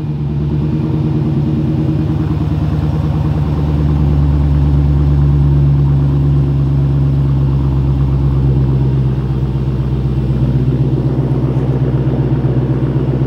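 Supercharged 6.2-litre Hemi V8 of a 2015 Dodge Challenger Hellcat idling steadily, heard at the rear exhaust tips, just after being started by remote.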